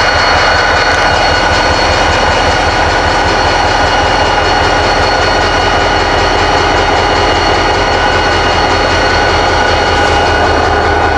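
Union Pacific SD40N diesel-electric locomotives with EMD 645 V16 engines idling: a steady low engine rumble with a steady high whine on top.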